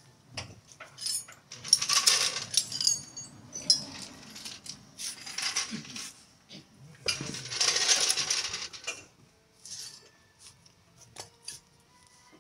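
Metal tools and parts clinking and rattling against each other, with sharp clicks throughout and three longer, louder stretches of rattling noise.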